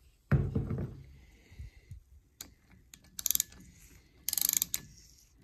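Ratchet wrench turning a spark-plug thread-repair tap: a thump about a third of a second in, then two short runs of rapid pawl clicks about three and four and a half seconds in.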